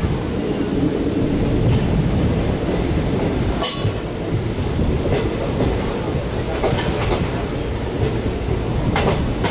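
Passenger train running along the track, heard from on board: a steady rumble of wheels on rails with rushing wind noise. A short sharp crack comes about four seconds in.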